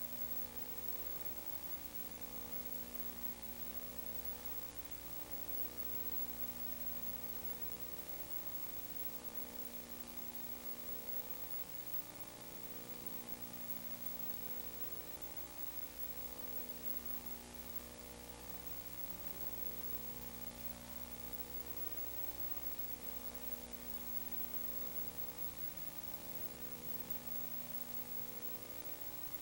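Steady hiss with a low electrical hum and no other sound: the background noise of the recording or broadcast line.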